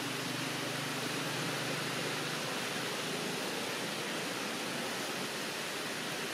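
A steady, even hiss with no distinct events, with a faint low hum underneath for roughly the first two seconds.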